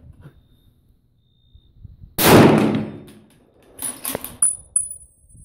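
A single shot from a scoped Tikka T3 bolt-action rifle in .30-06 about two seconds in, the report dying away over about a second, followed by a few small sharp clicks.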